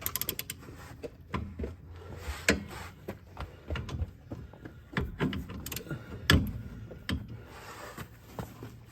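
A 14 mm wrench working on the rear brake caliper bolts: a quick run of clicks at the start, then scattered knocks and clinks of metal tools and parts.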